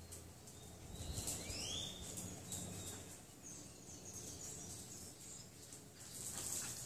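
Birds calling outdoors: short whistled chirps, with a couple of rising sweeping notes about a second in, over faint background noise and a few light clicks.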